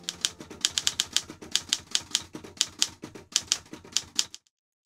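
Typewriter sound effect: a quick, uneven run of sharp key strikes, about five a second, that stops suddenly near the end.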